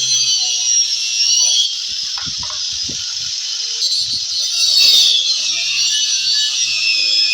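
Power tool cutting into the wooden speaker box, a steady high whine that wavers in pitch under load. A few knocks come about two to three seconds in and again about four seconds in.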